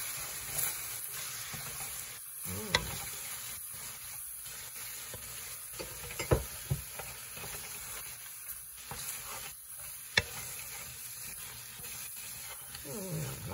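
A creamy tomato sauce sizzling in a pan while it is stirred, with a few sharp clinks of the stirring utensil against the pan.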